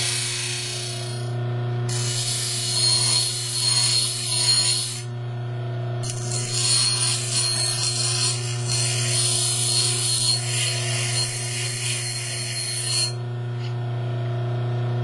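Six-inch bench grinder running steadily while a hacksaw-blade steel pick blank is pressed to the wheel in three spells of grinding, a short one at the start, one of about three seconds, and a longer one of about seven seconds, shaping a hook pick.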